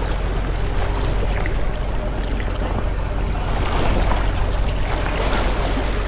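Wind rumbling steadily on the microphone over the wash of sea waves on a sandy beach.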